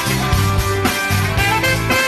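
Band music: a saxophone plays the tune over guitar and bass with a steady beat.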